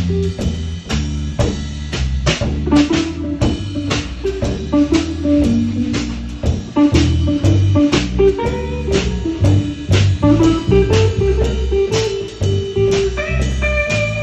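Band music: guitar over a drum kit keeping a steady beat, with a low bass line, in a bluesy, jazzy style.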